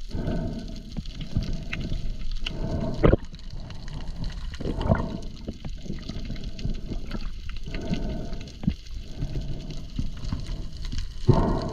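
Water gurgling and sloshing around a spearfisher's camera, with a muffled surge every two to three seconds.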